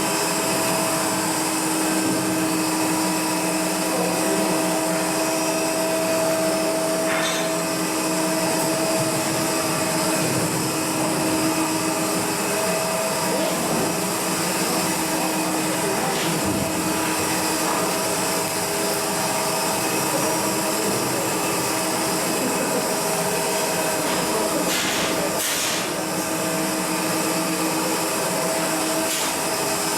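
Steady drone of running machinery with a constant hum, broken by a few brief knocks.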